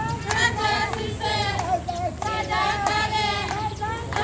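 A group of high voices singing together in short repeated phrases, a chant-like welcome song.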